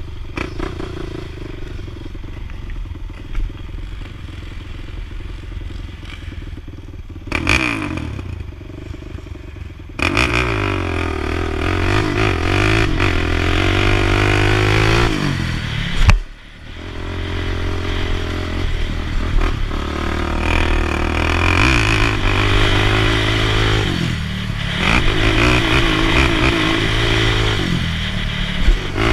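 Quad (ATV) engine under way over a dirt track, heard from the rider's helmet. It runs lower and quieter at first, then opens up sharply about a third of the way in and revs up and down through the gears, with one brief cut of the throttle about midway.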